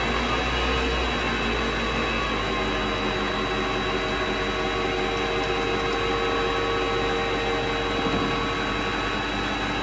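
Vevor MX 400 mini lathe running steadily, with a thin high whine over its motor hum, as the tool faces off the end of metal bar stock held in the spinning chuck.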